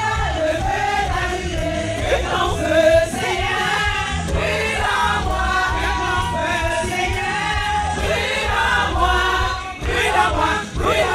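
Congregation and choir singing a lively gospel praise song with band backing, many voices together.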